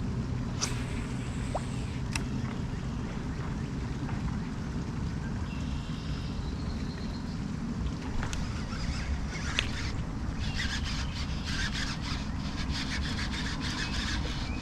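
Outdoor creek ambience: a steady low rumble, from moving water and wind on the microphone, with a few sharp clicks early on. From about ten seconds in comes a rapid patter of crisp splashes and clicks.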